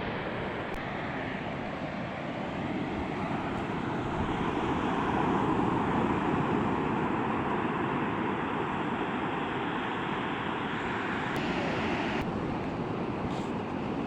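Sea waves washing on a beach: a steady surf wash that swells to its loudest around the middle and then eases.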